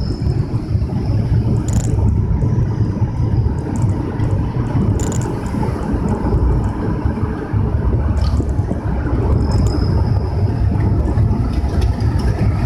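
Steady low rumble of a vehicle driving along a road, engine and tyre noise, with a few faint clicks.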